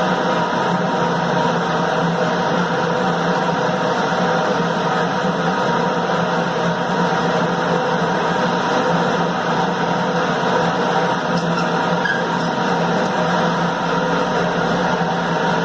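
Automatic 20-litre water-jug washing, rinsing, filling and capping machine running: a steady mechanical hum with a strong low drone and several held tones.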